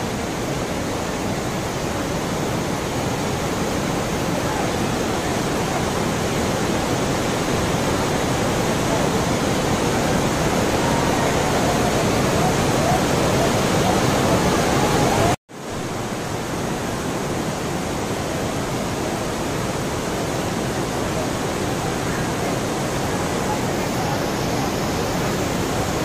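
Heavy rain pouring down on a flooded street, a steady rushing hiss of rain and running water. It cuts out for a moment about fifteen seconds in, then goes on.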